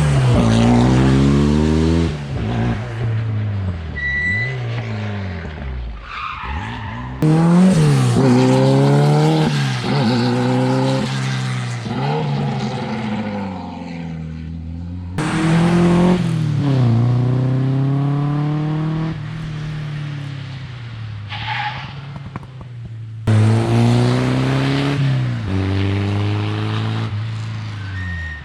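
Rally car engines revving hard at full throttle, each car's pitch climbing and dropping back through several gear changes, in four separate passes with abrupt cuts between them.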